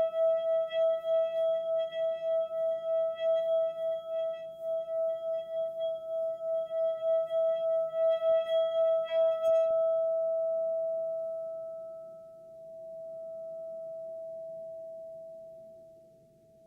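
A single sustained ringing tone in calm relaxation music, with a fast wobble and a few higher overtones. About ten seconds in, the wobble and the overtones stop, and the plain tone rings on, slowly fading.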